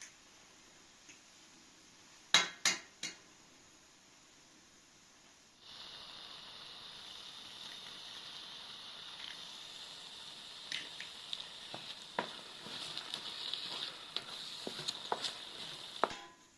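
Three sharp knocks against a cooking pan, then a frying pan of oil starts sizzling steadily about five seconds in, with taps and scrapes of stirring over it. The sizzle stops just before the end.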